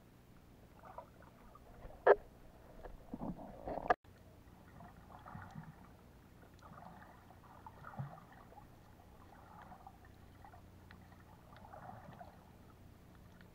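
Muffled underwater sound picked up by a camera held below the surface on a reef. There is a sharp knock about two seconds in and a short run of knocks and splashes just after it. Then comes soft, intermittent swishing of water from the swimmer's movements.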